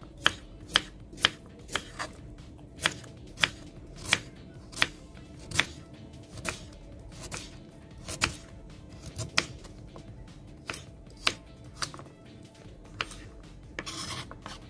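Chef's knife slicing a carrot into rounds on a bamboo cutting board: sharp knocks of the blade striking the board, irregular, about one or two a second. A brief scraping rustle near the end.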